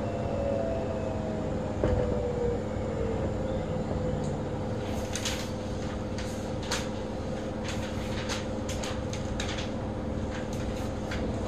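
Running noise inside a Tokyo Metro 03 series VVVF-inverter electric train car under way: a steady rumble of the wheels on the rails with a steady humming tone over it. There is a single thump about two seconds in, and a run of sharp, high clicks from about five seconds on.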